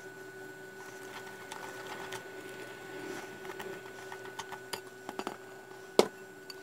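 Wire whisk faintly stirring and scraping in a glass mixing bowl, beating flour into a batter, with one sharp clink about six seconds in. A faint steady hum runs underneath.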